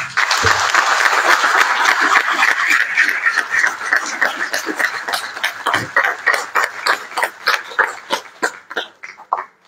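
Audience applauding: a full burst of clapping that thins after a few seconds into scattered separate claps and dies away near the end.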